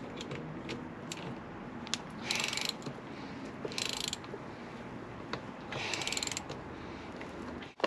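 Hand tool work on a motorcycle chain: a chain press tool being wound on to fit the connecting link, with three short runs of rapid clicking, each about half a second, and a few single clicks between them.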